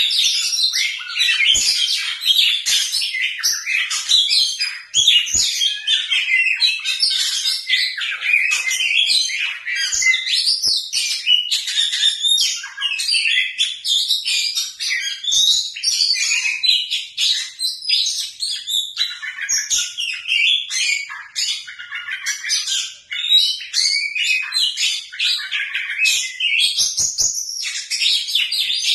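Oriental magpie-robin (kacer) singing continuously: a rapid, varied run of loud whistles, trills and chirps with hardly a pause.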